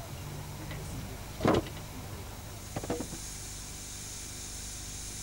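A heavy thump of a firewood log being dropped about one and a half seconds in, then a few lighter wooden knocks. After that comes a steady high hiss of steam escaping from a narrow-gauge, wood-fired steam locomotive.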